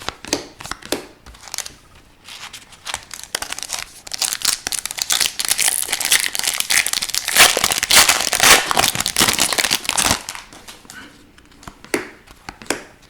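Trading-card pack wrapper being torn and crumpled: a dense crinkling that builds from about three seconds in, is loudest a little past the middle, and dies away near the end, with light taps and clicks in the first few seconds.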